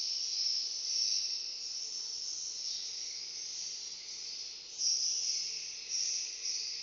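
Many swiftlets calling together: a dense, continuous high-pitched twittering chirp that swells louder twice near the end.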